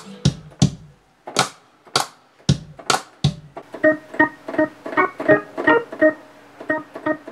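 A few sharp drum hits, then from about four seconds in a keyboard playing short, repeated chords in a quick, even rhythm, about three to four a second.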